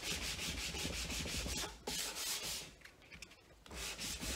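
Hand sanding: sandpaper wrapped on a sanding block rubbed back and forth along a timber frame piece in quick, even strokes, with a short pause about three seconds in.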